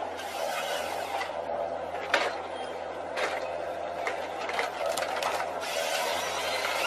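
Tree-cutting machine running steadily, with sharp cracks about two and three seconds in.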